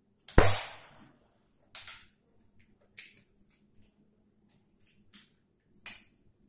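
Whiteboard markers handled at the board: a sharp click about half a second in, then a few softer, separate taps and clicks.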